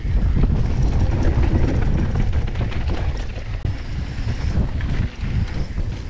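Mountain bike descending a dirt trail at speed: wind rumbling on the camera microphone, with tyres on loose gravel and many short rattles and clicks from the bike over the bumps.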